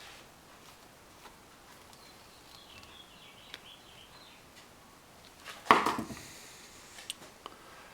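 Faint ticks, then about six seconds in a loud, short clatter of a metal faucet part or tool on a hard bench, followed by a few lighter clicks, during reassembly of a faucet.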